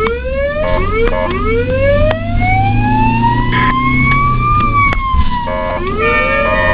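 Ambulance siren wailing: a short rising sweep, then one long slow rise that peaks about four and a half seconds in and falls away, with quick stepped warbling tones coming back near the end. A steady low hum of traffic runs underneath.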